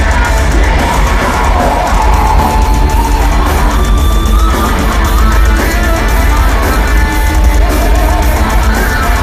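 Live heavy metal band playing at full volume: distorted electric guitars over pounding drums and heavy bass, in a continuous wall of sound with overloaded low end, as heard from within a concert audience.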